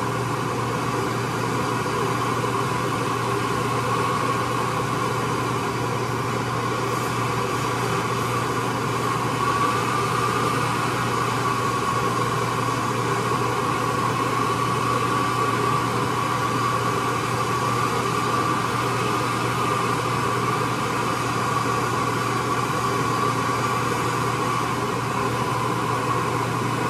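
Handheld propane torch burning with a steady hiss as it heats a shrink-fit tool holder to expand it and free the end mill, with a steady low hum underneath.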